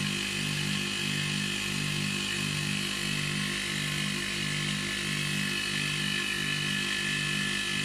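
Homemade air compressor made from an air-conditioner compressor, running steadily as it pumps a 40-litre tank up to about 8 kg/cm²: a steady hum with an even, slow pulsing.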